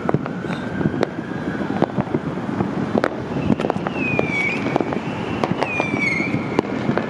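Distant fireworks popping and crackling across the city, many scattered sharp bangs over a steady urban hum. A siren's wail trails off in the first couple of seconds, and two short falling whistles come near four and six seconds in.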